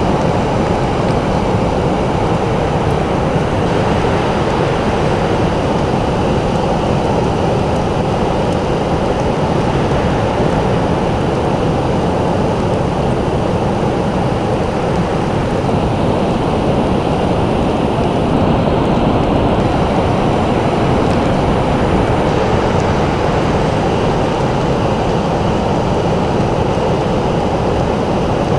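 Ocean surf making a continuous, even, low rush, with no single wave standing out.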